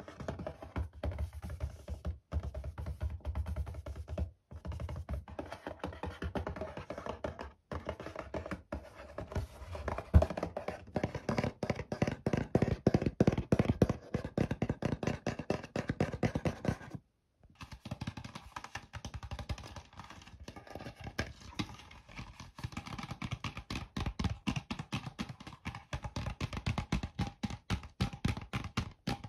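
Rapid, dense hand tapping on a cardboard box, the strokes ringing a little. After a short break about two-thirds of the way through, the tapping moves to an empty plastic soda bottle.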